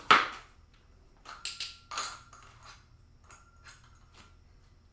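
Light metal pieces clinking and tapping, a few sharp clicks with a brief ringing ping about a second and a half in and again past the middle.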